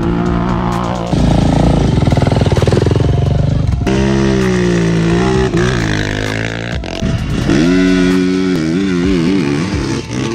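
ATV and dirt bike engines revving hard and accelerating off the line in short drag-race launches, edited together so the engine sound changes abruptly several times.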